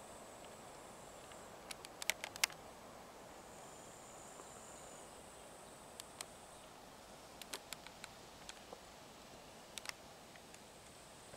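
Faint outdoor ambience: a thin, high hiss that comes and goes, with scattered sharp clicks in small clusters.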